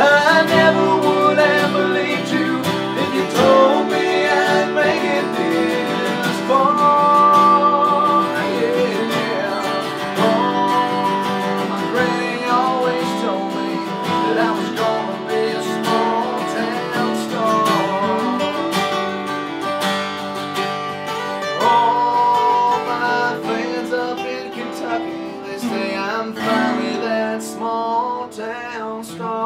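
Several acoustic guitars playing an instrumental country passage: strummed chords with a picked melody line running over them.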